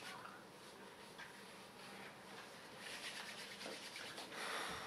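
Palms rubbing together, a faint dry rubbing that gets louder about three seconds in and again near the end.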